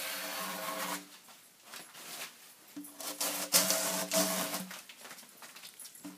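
A 16-inch drawknife with a 13-inch straight blade pulled along a hemlock log, shaving off the bark: two long scraping strokes, one at the start and one about three seconds in, each lasting one to two seconds.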